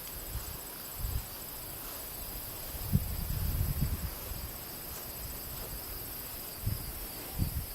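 Insects trilling in steady, unbroken high tones, one of them finely pulsing. Low rumbles and thumps come and go underneath, the strongest about three seconds in.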